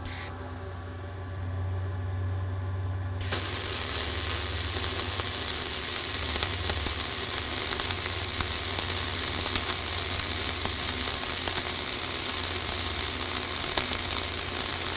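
Flux-core wire-feed welding arc striking about three seconds in, then crackling and sizzling steadily as the final cap pass is run uphill on vertical plate. A low steady hum comes before the arc starts.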